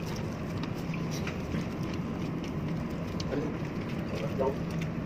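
Steady low background hum with scattered light clicks and rustles of hands taking food from a plastic-covered table during a boodle fight meal; faint voices murmur from about three seconds in.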